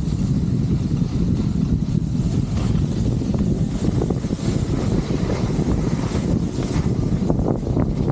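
Steady wind rumble on a camera's microphone moving at skiing speed down a slope, with the hiss of skis sliding over packed snow.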